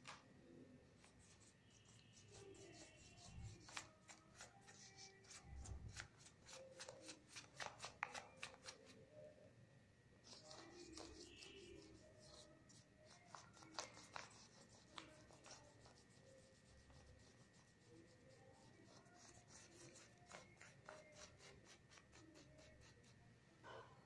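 Faint scratchy strokes of a paintbrush on paper, applying paint in quick runs of strokes with short pauses between them.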